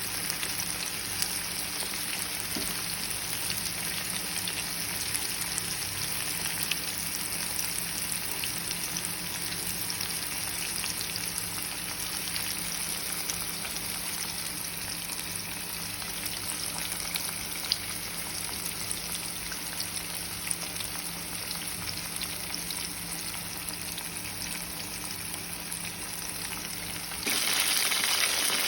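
Flour-coated tuna pieces deep-frying in hot cooking oil: a steady sizzle with scattered small pops. It turns suddenly louder about a second before the end.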